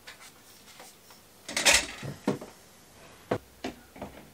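Camera tripod being handled and adjusted: a few separate clicks and knocks, the loudest a short rattle about a second and a half in, followed by single sharp clicks.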